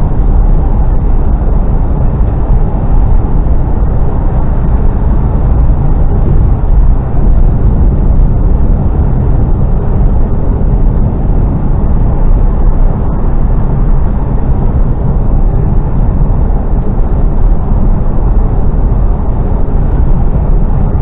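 Mercedes Actros lorry driving at a steady speed, heard from inside its cab: a loud, even drone of engine and road noise, strongest in the low range, without change.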